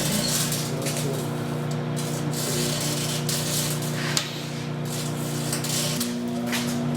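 Microwave oven running: a steady electrical hum with a hiss over it. The hum drops a little about four seconds in and shifts about six seconds in.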